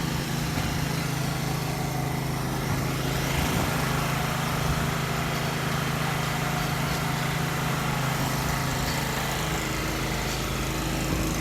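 A motor or engine running steadily, a constant low hum that holds the same speed throughout.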